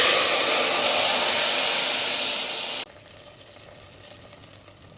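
Blended pepper mix (tatashe, shombo and habanero) sizzling hard as it goes into hot palm oil: a loud steady hiss that eases a little, then cuts off suddenly about three seconds in, leaving a faint low sizzle.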